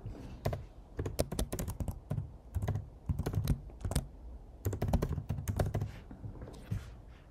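Typing on a computer keyboard: fast runs of keystrokes in short bursts, stopping about six seconds in.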